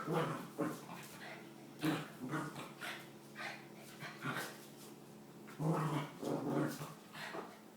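Puppy growling in short, separate bouts during play-wrestling with a cat: playful, not aggressive. The longest and loudest growls come about two-thirds of the way through.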